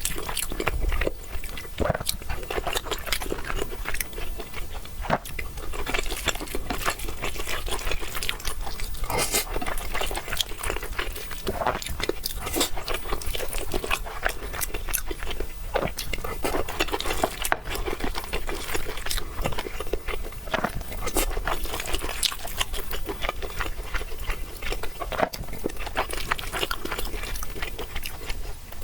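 A person chewing and biting crunchy food, with dense, irregular crackles and clicks of close-up mouth and eating sounds.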